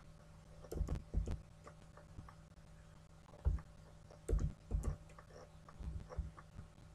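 Scattered computer keyboard keystrokes, a few irregular taps with a dull low thud, as code is re-indented. A low steady electrical hum runs underneath.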